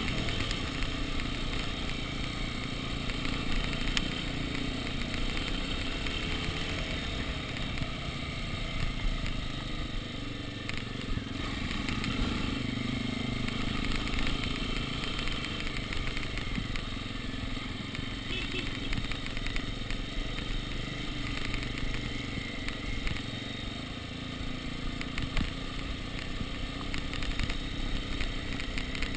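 Dirt bike engine running steadily as the bike rolls downhill on a rough cobbled lane, with the bike clattering over the stones.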